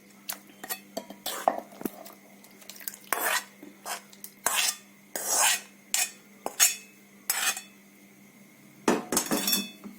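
A spoon scraping and knocking against a pan in a series of short, separate strokes about a second apart, as cooked green chilli and tomato pieces are scooped out.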